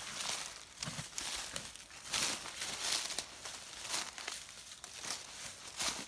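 Footsteps crunching and rustling through dry fallen leaves, an uneven run of steps about one or two a second.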